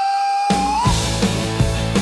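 Rock music: one long high held note bends up just before the first second, while the full band with bass and steady drum hits comes in about half a second in.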